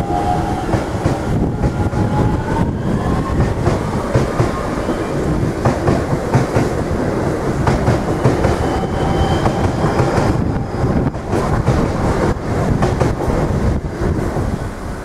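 Irish Rail DART electric multiple unit rolling through a level crossing: a steady rumble with wheels clattering over the rail joints, and a faint rising electric whine in the first few seconds.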